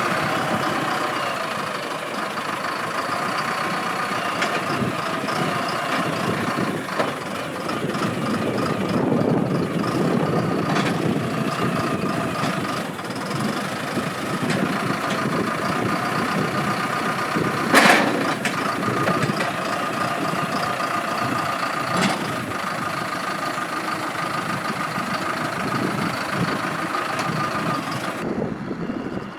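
Backhoe loader's diesel engine running steadily with a whine from the working machinery. A sharp knock comes about 18 seconds in and a lighter one about 22 seconds in.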